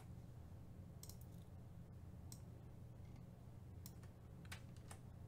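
Faint, scattered sharp clicks of a computer mouse and keyboard, about seven in all, unevenly spaced, over a low steady hum.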